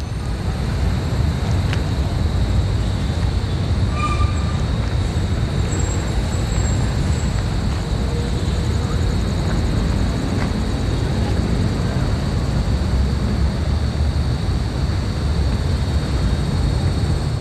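Steady low rumble of distant city traffic, even throughout with no distinct events.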